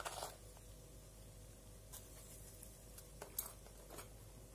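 A quiet kadhai of hot mustard oil with spices, giving a few faint soft crackles and clicks over a low steady hum.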